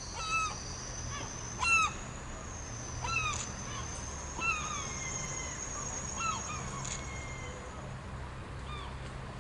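Birds calling in short, sharp, repeated calls, the loudest about a second and a half in, over a steady high-pitched whine and a low hum.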